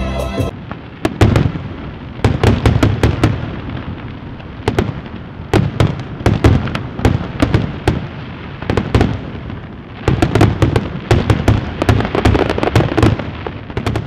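Fireworks going off: a rapid, irregular string of sharp pops and bangs with a low rumble, coming in clusters with short lulls between them.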